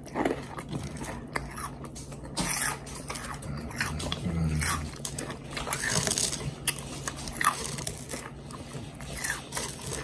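Crisp double-fried, hand-cut french fries being bitten and chewed, with irregular sharp crunches, over a faint low steady hum.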